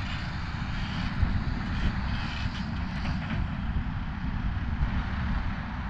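Steady low rumble with a hiss of outdoor background noise, without a clear start or stop.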